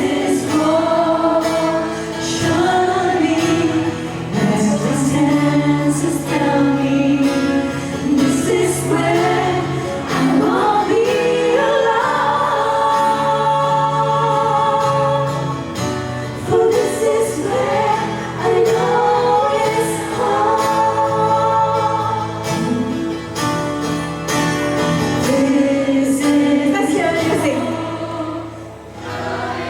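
A vocal group singing a song in multi-part, choir-like harmony over sustained low notes, easing off briefly near the end.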